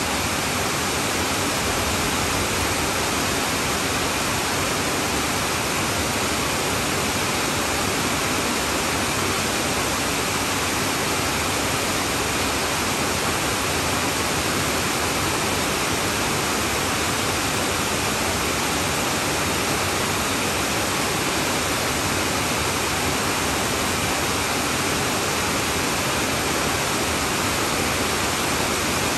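Heavy downpour on a tin roof, steady and unbroken.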